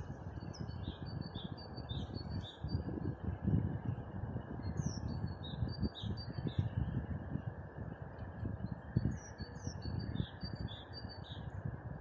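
A songbird sings three phrases of quick repeated high notes, each lasting two or three seconds, over a steady, gusting low rushing noise.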